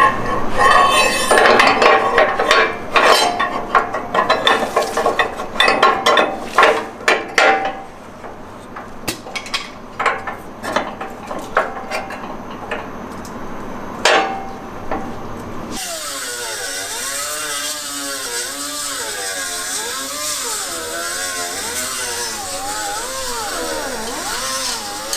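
Hand tools working on a steel sway bar and its mounting hardware: ratcheting and sharp metal clicks and clanks. About sixteen seconds in, this cuts off abruptly and gives way to a steady sound whose pitch wavers up and down.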